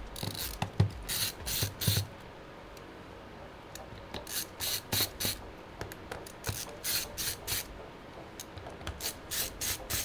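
Scratchy, ratchet-like rasps from a hand screwdriver twisting screws out of a Chromebook's plastic bottom case, in four short runs of quick strokes with pauses between.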